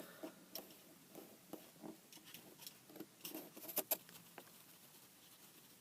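Faint handling noise: scattered light taps and rustles, with two sharper clicks a little under four seconds in.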